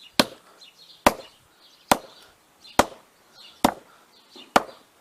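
A hammer striking a phone battery six times in a steady rhythm, a little under one blow a second. The blows are damaging the battery so that it heats up.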